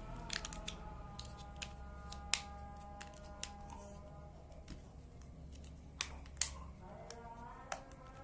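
Scattered sharp clicks and small knocks of hands handling a plastic mini tripod and its packaging, the loudest about two seconds in and twice around six seconds in, over soft background music.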